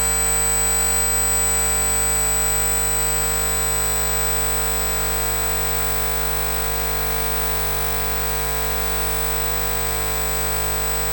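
Steady electrical hum and buzz made of many fixed tones over a faint hiss, unchanging throughout.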